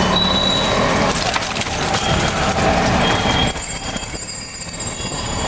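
Auto-rickshaw riding through a street, heard from inside: its small engine running under a dense rattle and road noise, easing off somewhat about three and a half seconds in.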